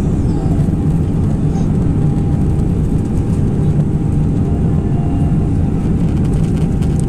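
Steady low rumble of an Airbus A319 in flight heard inside the cabin: engine and airflow noise, with a faint steady whine above it.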